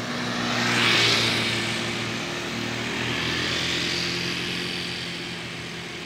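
Street traffic: a vehicle passes close by, its engine and tyre noise swelling to a peak about a second in and then slowly fading, over a steady low engine hum.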